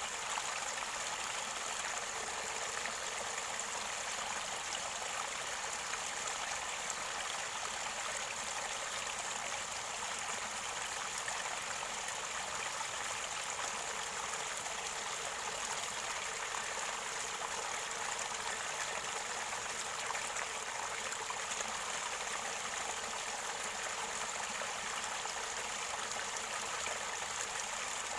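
Mountain river water gurgling and running steadily near its spring source, an even rushing sound with little bass.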